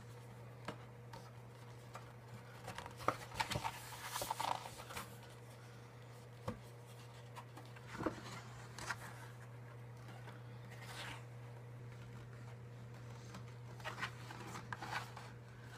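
Faint, scattered rustling, scraping and light clicks of small items being handled, over a steady low hum.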